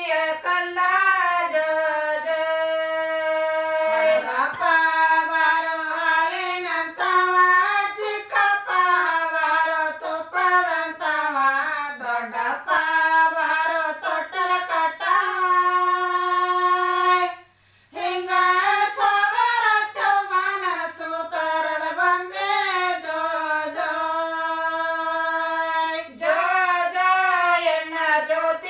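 Women singing a jogula, a Kannada lullaby, through a microphone: a slow melody with long held notes. The singing breaks off for under a second a little past the middle.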